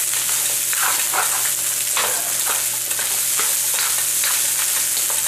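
Fried rice sizzling in oil in a wok that is not non-stick, while a slotted spatula tosses and scrapes it. The spatula makes about eight irregular scrapes against the pan over a steady sizzle.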